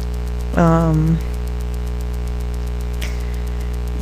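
Steady electrical mains hum with a light hiss under it, and one short wordless vocal sound from the speaker with falling pitch about half a second in.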